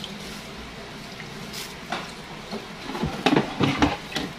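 Hands squeezing wet grated coconut in a plastic bucket to press out coconut milk: irregular soft squelches and knocks, most of them crowded into the last second and a half.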